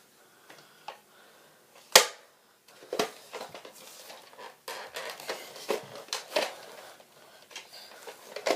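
Plastic clicks, knocks and rattles from a jammed Buzz Bee toy foam-dart blaster being worked by hand to clear it, with one sharp loud snap about two seconds in and a run of irregular clicks after it.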